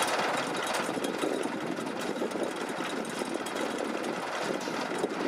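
Engine of a Bucyrus-Erie 15-B crawler excavator running steadily with a fast, rough clatter.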